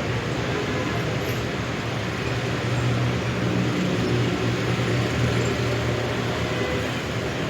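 City street traffic: a low, steady engine hum from nearby vehicles over general road noise, swelling a little in the middle.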